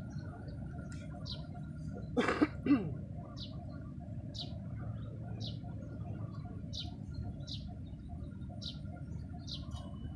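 A bird repeats a short, high chirp about once a second over a low, steady outdoor background. About two seconds in, a brief, louder call with a falling pitch cuts across it.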